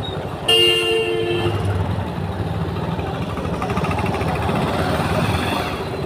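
A vehicle horn sounds once, for about a second, starting about half a second in. Under it runs the steady sound of the ridden motorcycle's engine and road noise.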